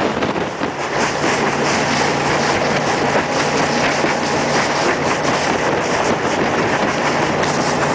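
Jet boat's engine running at speed in a steady drone, with the rush of water past the hull.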